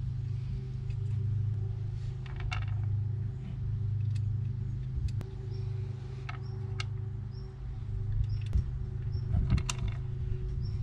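Scattered light metallic clicks and clinks of bolts being handled and screwed into the water pump housing of a Toyota Land Cruiser HJ61 engine, over a steady low hum.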